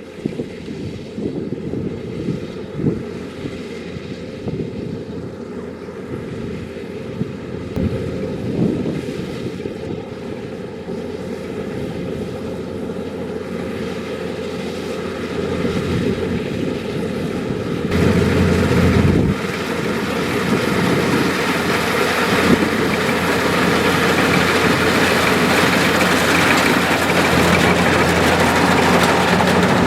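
Kubota DC-105X rice combine harvester running, its diesel engine a steady drone that grows louder, stepping up sharply about two-thirds of the way through.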